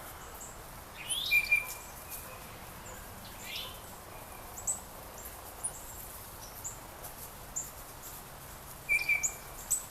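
Several songbirds calling: scattered short, very high chips all through, with a few clearer lower notes and two quick falling calls in the first few seconds. The loudest calls come about a second and a half in and again near the end.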